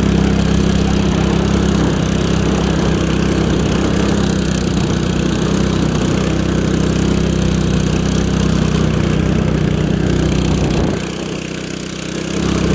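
Small engine of a motorized snowboard running steadily under throttle as the board is ridden over snow. Near the end it drops for about a second and a half, then picks back up.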